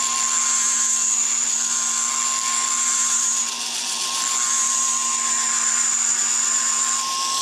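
Handheld pencil grinder running at high speed with a small mounted stone, grinding inside the drift slot of a steel taper adapter: a steady high whine with a grinding hiss that eases briefly about halfway through, then resumes.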